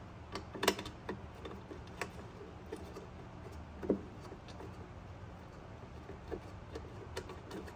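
Light metallic clicks and taps, irregular and about a dozen in all, from bolts and hand tools as bolts are started into a freshly sealed engine cover and left loose. A low steady hum runs underneath.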